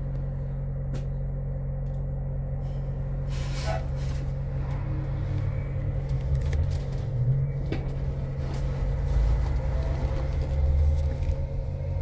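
Cabin sound of a Blue Bird electric school bus pulling away and accelerating gently: a steady low electric-drive hum, with road rumble growing louder in the second half. A short hiss comes about three and a half seconds in.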